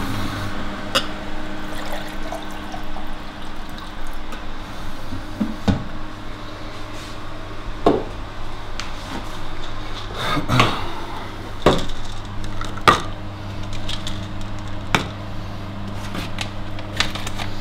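Kitchen handling sounds: water poured from a glass jug into a cup, then scattered knocks and clicks of cupboard doors and plastic supplement bottles being handled, over a steady low hum.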